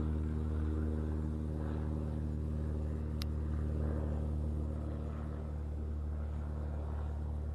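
A steady, low engine drone holds one pitch, with a single brief sharp click about three seconds in.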